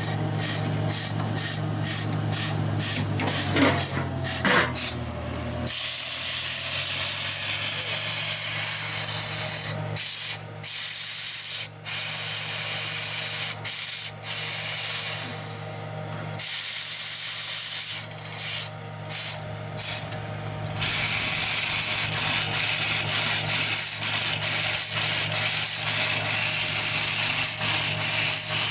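Truck-mounted borewell drilling rig running: a loud, steady hiss of compressed air over a low engine drone, cutting out briefly several times.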